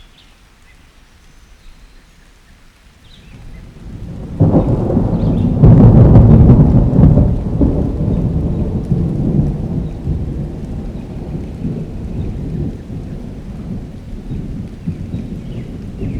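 Thunderstorm: light steady rain, then a thunderclap that builds about three seconds in, breaks sharply a little after four seconds and is loudest soon after. It rolls on as a long low rumble that slowly fades, with the rain continuing underneath.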